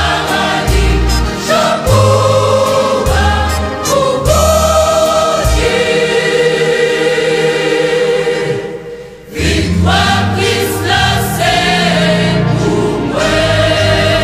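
A choir singing a gospel song with instrumental accompaniment and a moving bass line; the music dips briefly about nine seconds in.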